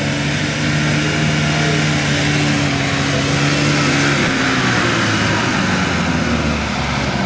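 Off-road 4x4 vehicle's engine running and revving. About halfway through, a louder rushing noise rises over it and then eases as the steady engine note comes back.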